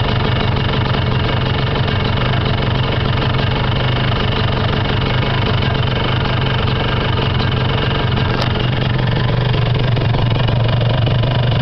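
Kawasaki Victor-S 150 motorcycle engine idling steadily, with no revving.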